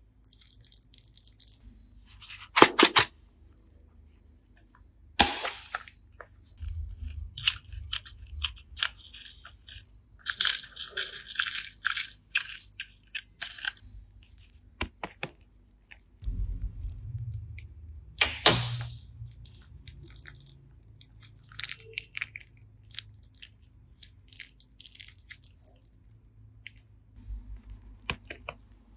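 Glitter slime being kneaded and squished by hand, with sticky crackles and squelches and a few loud, sharp snaps about 3, 5 and 18 seconds in.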